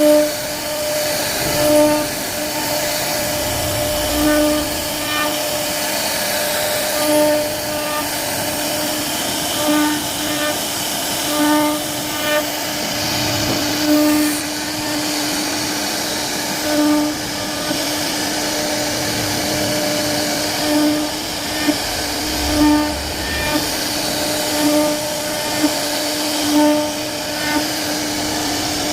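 CNC router carving a wooden door panel: the spindle runs with a steady pitched whine over a wash of cutting noise, swelling in loudness every second or two as the bit works through the wood.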